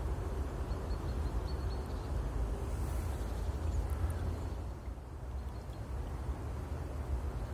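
Outdoor ambience: a steady low rumble with a few faint high chirps about a second in.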